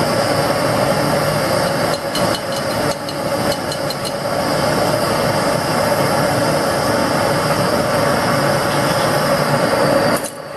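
LPG burner firing a small melting furnace, running with a steady loud rush. A few light metallic clinks, tongs on metal, come about two to four seconds in.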